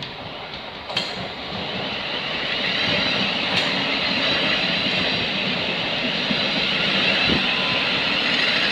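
Thameslink Class 700 electric multiple unit coming out of the tunnel and running along the platform. The wheel and motor noise grows over the first couple of seconds and then holds steady, with a sharp click about a second in.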